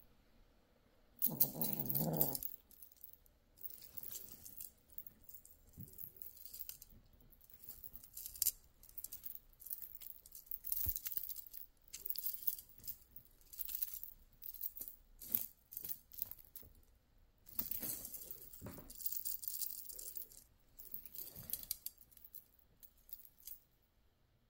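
Irregular rustling, scratching and light clicks as a kitten pounces and paws at a feather wand toy on a knitted bedspread, with one louder rustle a little over a second in.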